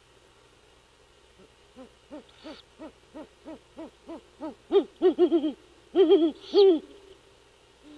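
Great horned owls hooting: a run of soft, evenly spaced low hoots, about three a second, then much louder hoots from about five seconds in. This is the mated pair calling back and forth, the male calling and the female answering from the nest.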